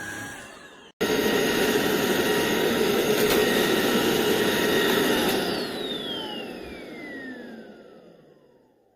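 Tineco Pure ONE S11 cordless stick vacuum running loud and steady, starting abruptly about a second in. A little after halfway it is switched off, and the motor spins down with a falling whine that fades away.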